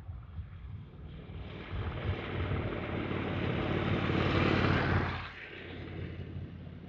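Honda NC750X motorcycle with its parallel-twin engine approaching and passing by, growing steadily louder to a peak about four and a half seconds in, then dropping off sharply as it moves away.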